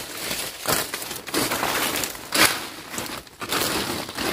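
Thick dry fallen leaves, largely sabaeng (Dipterocarpus) leaf litter, crunching and crackling in several irregular bursts as a person in rubber boots steps through it.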